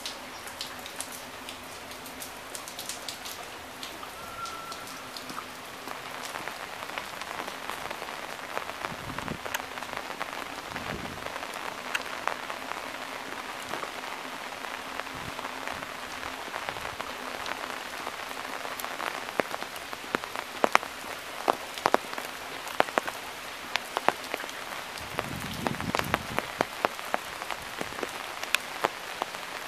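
Steady rain falling, with many sharp close drip ticks that come thicker and louder in the second half.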